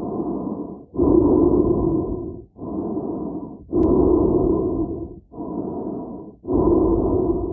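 A person breathing steadily inside a helmet. Louder and softer breaths take turns, each about a second long with a short pause between, for a full in-and-out cycle roughly every two and a half seconds.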